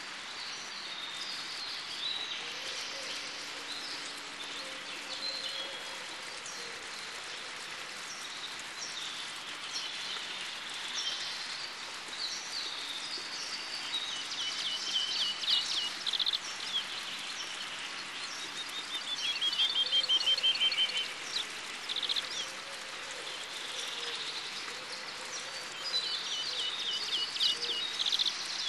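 Birds singing: scattered chirps and several rapid trills, the loudest a falling trill about twenty seconds in, over a steady background hiss.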